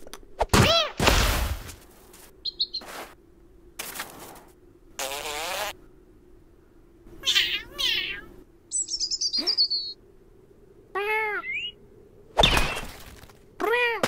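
Cartoon animal sound effects: a cat's short meows and yowls with rising and falling pitch, a small bird's chirps and a high falling trill, and a couple of thumps.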